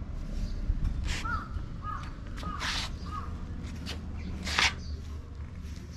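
A cat giving several short, high-pitched mews, one after another in the first half. Brief rustling noises come about a second in, near the middle, and a louder one toward the end.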